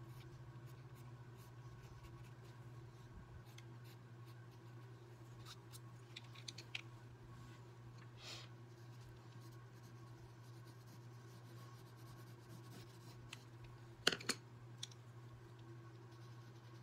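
Faint scratching of a coloured pencil on watercolour paper as small marks are drawn, over a steady low hum. A couple of sharp clicks about fourteen seconds in.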